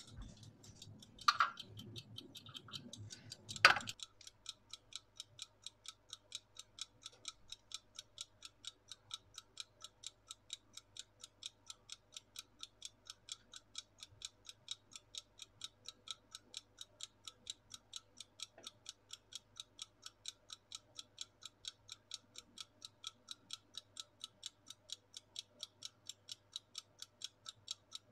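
Wind-up mechanical kitchen timer ticking evenly, about three ticks a second, as it counts down the eggs' boiling time. Two sharp knocks come in the first few seconds, before the ticking starts.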